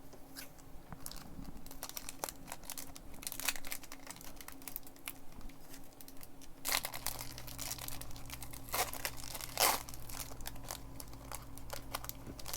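Foil wrapper of a Pokémon trading-card booster pack being torn open and crinkled, with irregular crackles and rustles as the cards are handled. A low steady hum comes in about halfway through.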